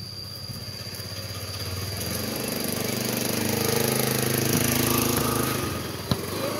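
A motor scooter's engine grows louder as it rides up and passes close by, then fades. Near the end there are two sharp thuds, a football being kicked.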